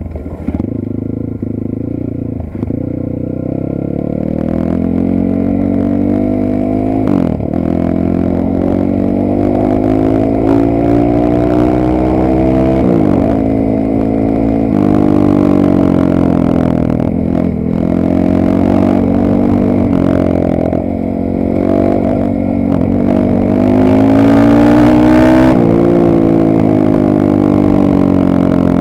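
Geon Dakar GNS300 300 cc enduro motorcycle being ridden. Its engine note climbs steadily under throttle and drops sharply, over and over, as the rider shifts gear or rolls off.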